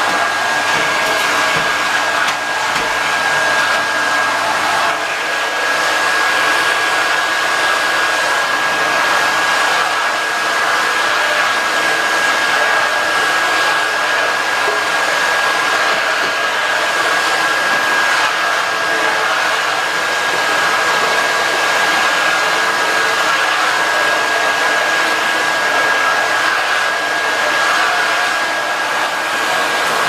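Nilfisk GM80 canister vacuum cleaner running steadily: a constant rush of air with a thin, steady high whine through it.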